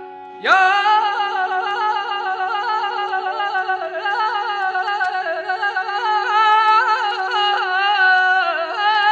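Mugham singing: one long, high sung phrase, the voice rippling in quick tahrir trills, over a steady droning instrumental note. The voice comes in about half a second in and stops near the end.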